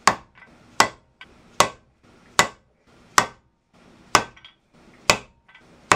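Hammer blows on a 1-inch dowel, tapping the inner race of a ball bearing onto the planer cutterhead's shaft: about eight sharp taps, a little under a second apart, each moving the bearing a little further on.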